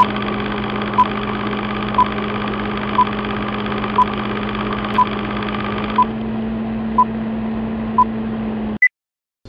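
Film countdown-leader sound effect: a steady hum under a short beep every second as the numbers count down from nine to one, then a single higher beep for zero, after which it cuts off.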